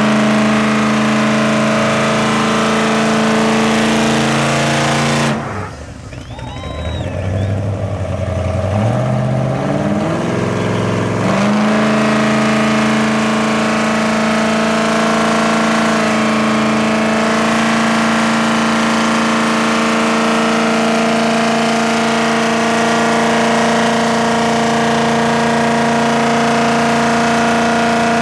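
Chevy pickup truck engines held at high revs under heavy load, pulling against each other in a tug of war. About five seconds in the revs drop away sharply, then climb back up in steps and hold steady again at full throttle.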